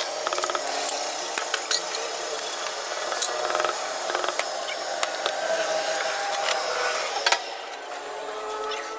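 Mechanic's hand tools working on a car's drive axle: irregular clicks and knocks over steady background noise, with a sharper knock about seven seconds in.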